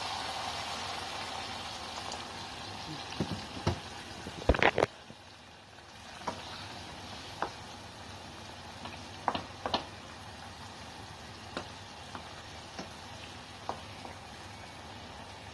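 Ground beef sizzling and simmering in a saucepan after water has been added, the hiss strongest at first, with a wooden spatula stirring and knocking against the pan now and then; the loudest knocks come about four and a half seconds in.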